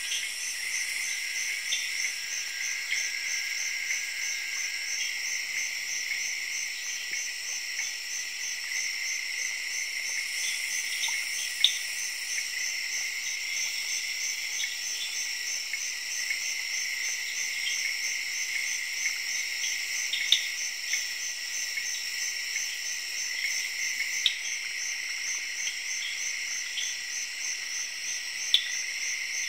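Night-time insect chorus of a tropical forest: dense overlapping trilling of crickets and similar insects, with a fast, even pulsing high up. A few sharp clicks or chirps stand out, the loudest about a third of the way in.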